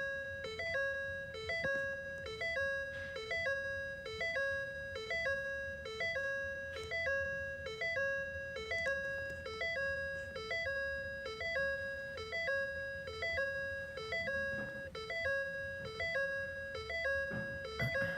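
Ford F-250's dashboard warning chime repeating non-stop in the cab, a two-tone electronic chime cycling about every 0.7 s. It is part of the erratic electrical fault that fills the dash with errors while the truck won't start.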